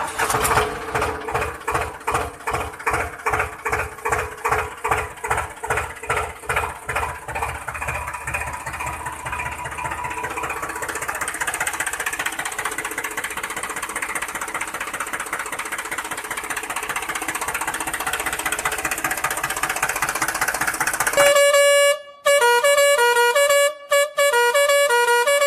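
A dubbed-in engine-like sound, pulsing about two beats a second and then running more steadily. About four seconds from the end it gives way to a multi-note musical truck horn playing a tune, with short breaks.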